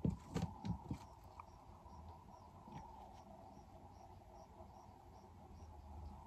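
Faint insect chirping, a high-pitched chirp roughly twice a second from about two seconds in, over a steady outdoor hum. A few soft knocks come in the first second.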